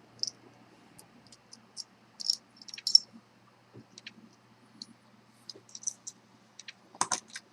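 Irregular light metallic clicks and ticks as the last small discs and spacers of an S&G 881 padlock's disc pack are worked out of the lock body, with a few louder clicks near the end.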